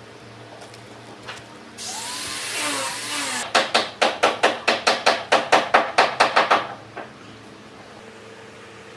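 Workshop tool sounds: a burst of hissing noise lasting about a second and a half, then a fast, even run of sharp knocks, about five a second for some three seconds, that stops abruptly.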